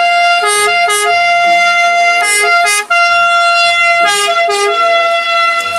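Electronic ambulance-siren sound effect: a steady high tone with a pattern of shifting notes that repeats about every two seconds.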